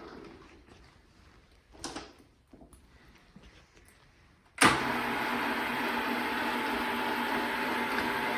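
Hembrug DR1-LS metal lathe running down as its motor is switched off. A clunk and a few light clicks follow, like the controls being worked. Then the motor starts with a sudden jolt and the lathe runs steadily again, with a steady hum.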